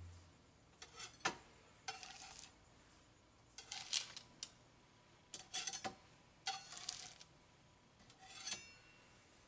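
Metal spatula sliding under baked pinwheel cookies on a baking sheet and setting them down on a wire cooling rack: faint scrapes and light clinks in short clusters every second or two.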